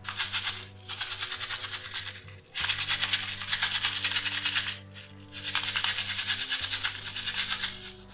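Small stiff brush scrubbing the teeth of a wet plastic gear wheel, fast back-and-forth strokes in four bursts with short breaks between.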